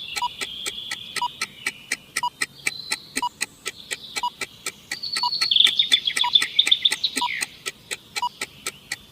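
Quiz countdown timer: a steady fast ticking, about four ticks a second with a lower tick once a second, over birds chirping and trilling that grow busier midway.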